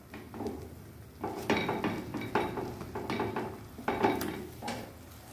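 Handling sounds in a frying pan: a series of short soft knocks and clatters as slices of bread are dipped and pressed into egg frying in the pan, with a faint sizzle beneath.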